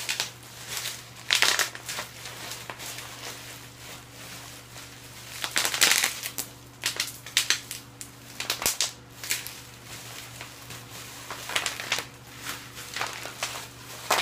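Plastic bubble wrap being crumpled and squeezed by hand, crinkling and crackling in irregular bursts, with a single sharp snap a little past the middle.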